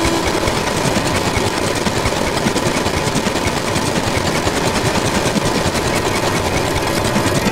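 Black MIDI played through a software synthesizer with a Steinway piano soundfont: millions of simultaneous notes blur into a loud, dense, very fast rattling noise, with a faint steady tone running through it.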